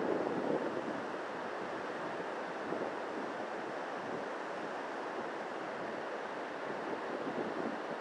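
Steady rush of surf breaking on a sandy beach, with some wind on the microphone.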